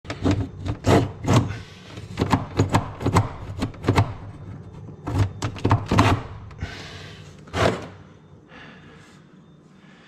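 Sharp clicks and knocks of a screwdriver working at a refrigerator drawer's metal slide rail, about a dozen in the first six seconds at an uneven pace. A brief scraping rustle and one more knock follow a little later.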